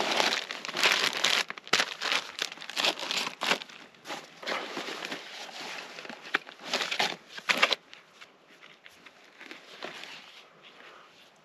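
Irregular crinkling and rustling from something being handled, dense for about eight seconds and then thinning to faint scattered rustles.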